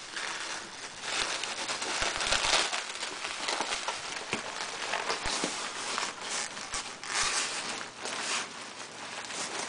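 Plastic bubble wrap crinkling and rustling as hands pull it away from around a clock in a cardboard box, an uneven run of crackles and rustles.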